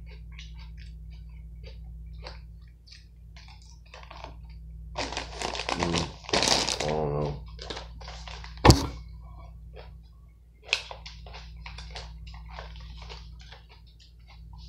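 Crinkling of a plastic bagged-salad pouch being handled, with chewing and small fork clicks, over a steady low hum. The crinkling is loudest about five to seven seconds in, and a sharp thunk just before nine seconds is the loudest sound, with a smaller knock about two seconds later.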